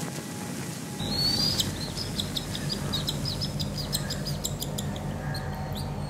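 Cockatiel chick giving a fast run of short, high food-begging chirps as it is syringe-fed, over a low steady hum. The chirps start about a second in, after a tail of background music, and thin out toward the end.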